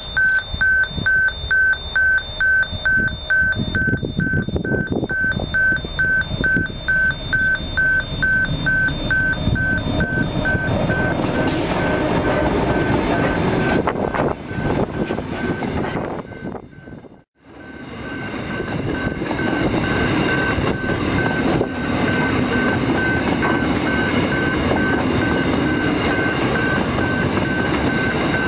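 Level crossing warning bell pulsing about twice a second while a narrow-gauge diesel freight train approaches; the locomotive's engine and wheels grow loud as it passes close by. After a short break, a long rake of tank wagons rolls past with a steady rumble, the crossing bell still sounding faintly.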